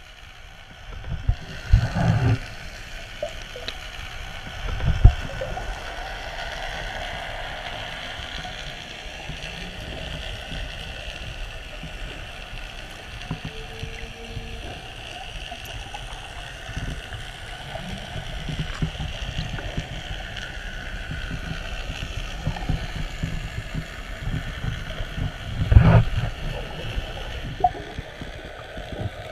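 Muffled underwater sound picked up through a camera's waterproof housing: a steady rumble and slosh of moving water, with dull knocks against the housing about two seconds in, about five seconds in, and again near the end.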